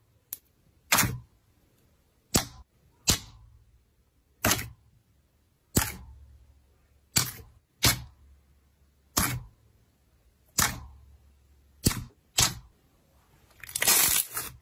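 Clear jelly slime being pressed and poked by hand, giving about a dozen sharp, separate pops about a second apart as trapped air squeezes out. Near the end, squeezing it with both hands gives a quick run of crackling pops.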